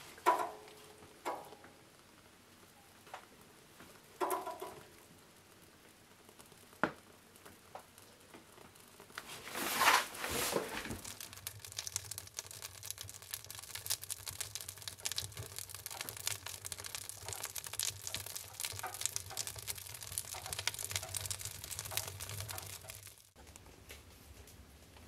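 Kindling fire being lit in a wood stove: a few short sharp sounds at the start, a loud rushing noise about ten seconds in, then the fast, dense crackle and pop of burning kindling, which stops suddenly near the end.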